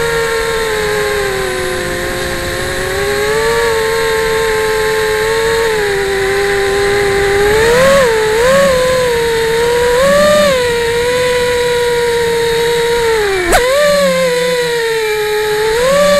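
Brushless motors and propellers of a Martian 2 FPV quadcopter, heard through its onboard camera: a steady electric whine whose pitch sags, then swoops up in short throttle bursts around eight and ten seconds in. A sharp click comes about thirteen and a half seconds in, with the pitch dropping and then surging again.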